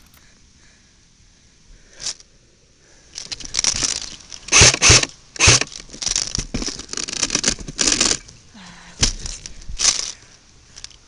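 Footsteps crunching through dry leaves and brush on the forest floor, a crackling step about twice a second for several seconds, then two more steps near the end.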